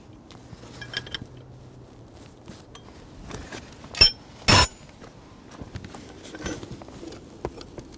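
Steel-on-steel handling of a homemade bandsaw mill's idle-wheel mount: light clicks of a wrench working the adjuster bolts. About four seconds in come two sharp metal clanks with a high ringing tone, the second longer, then more small knocks as the wheel assembly is pushed on.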